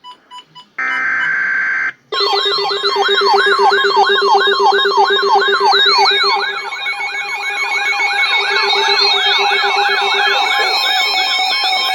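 Emergency broadcast alert signal. It opens with a few short beeps and a brief burst of noise, then from about two seconds in comes a loud warbling, siren-like tone that sweeps rapidly up and down, with several steady alert tones layered over it.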